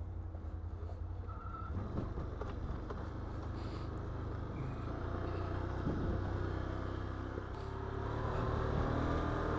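ATV engine running at low trail speed, a steady drone that climbs a little in pitch and level near the end.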